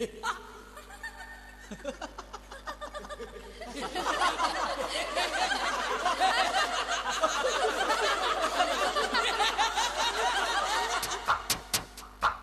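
Laughter from several people, many voices overlapping, for about seven seconds. Near the end an electronic drum-machine beat starts.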